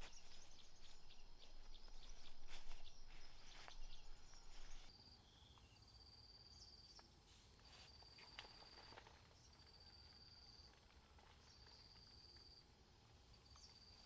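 Short clicks, knocks and rustling of someone moving about for about five seconds, then these stop. Insects trill steadily in the forest at two high pitches, in pulses of roughly a second.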